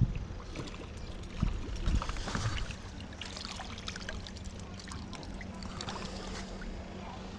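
Small waves lapping and splashing against harbour rocks at the water's edge, with a few low thumps in the first two seconds.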